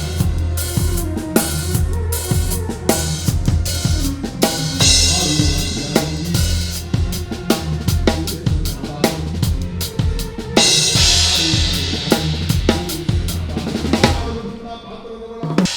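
Acoustic drum kit played in a steady groove of kick, snare and cymbals, heard through the kit's overhead microphones. A cymbal crash about ten seconds in rings out and fades, and there is a brief lull near the end before the playing resumes.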